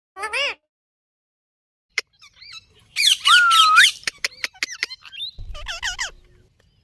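Pet Indian ringneck parrot calling: a short warbling call at the start, then a loud harsh squawk about three seconds in, and another warbling call near the end, with sharp clicks in between.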